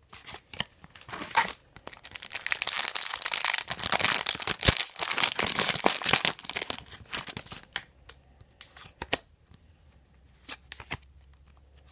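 Wrapper of a baseball card pack being torn open and crinkled, a dense stretch of a few seconds, with short light clicks of cards being handled before and after it.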